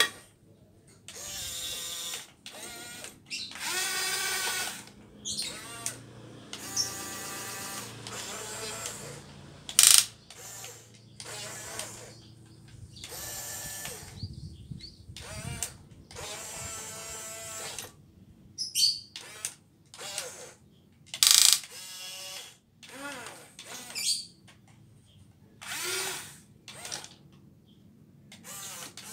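Radio-controlled model excavator's small electric motors whining in repeated bursts of one to two seconds as the tracks, boom and bucket are worked, with gear clatter between. Two sharp knocks stand out, about ten seconds in and again past twenty seconds.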